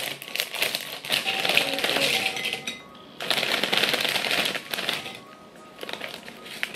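A crinkly plastic snack chip bag being pulled open and tipped, its crinkling and the rustle of chips shaken out into a bowl coming in two loud stretches with a short pause about three seconds in, then softer crackling. Quiet background music plays underneath.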